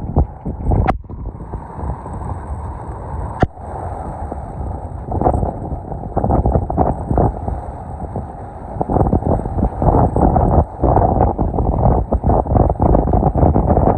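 Strong gusty storm wind buffeting the microphone in uneven surges, with two sharp knocks in the first few seconds.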